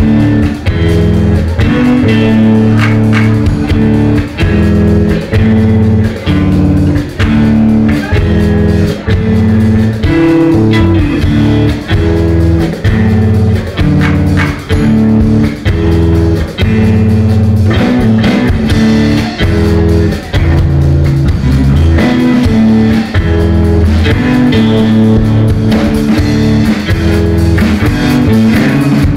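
Live rock band playing loud, with no singing: electric guitars over a repeating low riff and a drum kit.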